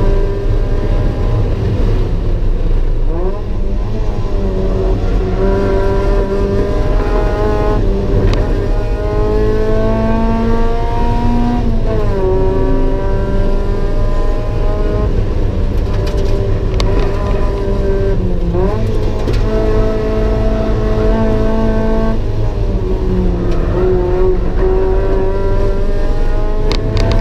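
Mazda MX-5 (NA) 1.8-litre four-cylinder engine driven hard on track, heard from inside the cabin. Its pitch climbs steadily through each gear and drops sharply several times at the shifts and braking points.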